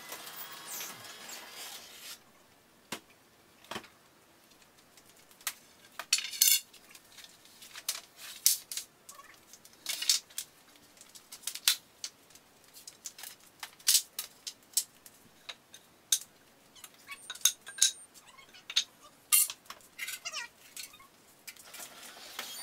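Lumber boards knocking and clattering as they are carried in and set down on a concrete garage floor: sharp, irregular wooden clacks, about one or two a second.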